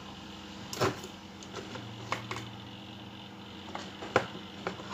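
A few scattered light clicks and taps of metal multimeter probe tips against a circuit board's solder joints and the board being handled, the sharpest about four seconds in, over a faint steady hum.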